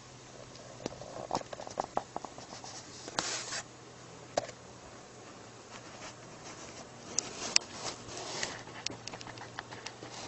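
Scattered small clicks, scratches and rustles, with a short scraping patch about three seconds in and a sharp click a little past the middle, over a faint steady low hum.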